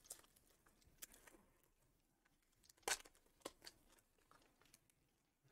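Faint tearing and crinkling of a foil trading-card pack wrapper being pulled open, with one brief louder rip about three seconds in and a couple of light ticks after it.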